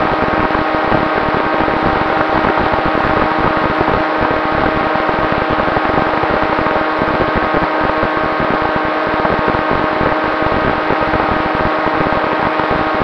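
Electric motor and propellers of an FPV aircraft heard through its onboard camera in flight: a steady whine of several tones over a constant rush of noise, holding even throughout.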